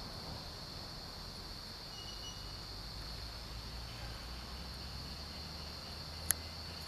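Steady, high-pitched drone of insects, with a single sharp click about six seconds in.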